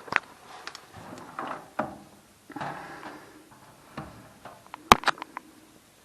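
Handling noises during washing-machine disassembly: scattered knocks, clicks and short scrapes of parts and tools, with one sharp click about five seconds in.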